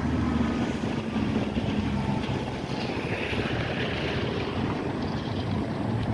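Steady rumble of a moving vehicle with wind noise on the microphone.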